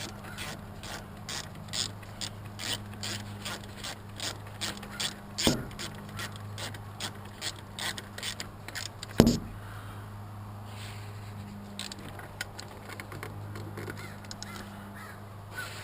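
Ratchet wrench clicking in a steady rhythm, about three clicks a second, as a bolt is run down tight enough to crush its gasket. There are two louder metal knocks, the second about nine seconds in; after it the clicking turns sparse and faint.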